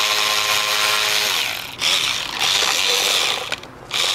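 A handheld power tool running on bolts on the engine, with a steady whine at first that shifts about a second in, and two brief stops, near two seconds and just before the end.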